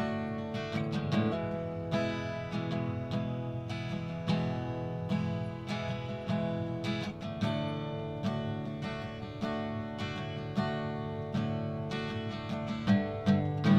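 Acoustic guitar strummed in a steady rhythm, moving back and forth between E major and D major chords with no singing.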